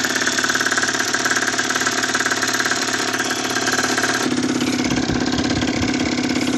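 Small two-stroke engine of a stock Yamaha DT / Malaguti XSM motorcycle idling with a fast, even beat. It runs on a rich oil-in-petrol mix and is not fully warmed up. Its tone shifts slightly about four seconds in.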